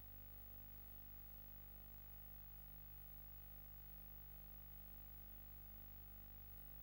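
Near silence: a faint steady low hum with light hiss, no other sound.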